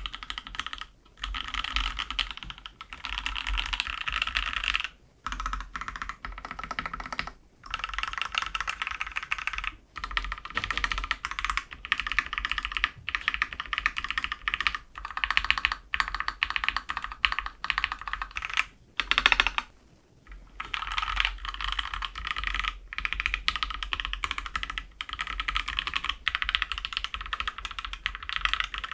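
Fast continuous typing on a mechanical keyboard with lubed TKC Banana Split linear switches in an aluminium plate. It comes in dense runs of keystrokes with short pauses every few seconds, and one sharper stroke about two-thirds of the way through.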